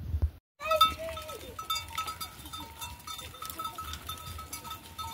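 A herd of goats bleating, many overlapping calls, with hooves clattering on a stony path. It starts about half a second in.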